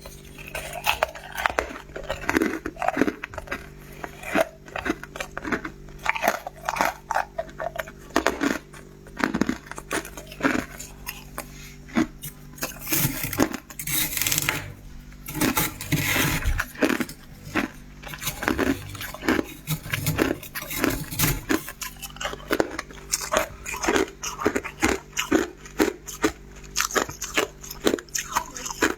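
Freezer frost being bitten and chewed close to the microphone: a steady run of crisp, crackly crunches, denser and noisier around the middle.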